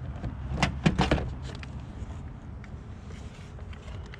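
A few sharp clicks and knocks from hands working the plastic trim clips and switch panel of a car door card, clustered about half a second to a second in, over a low steady hum.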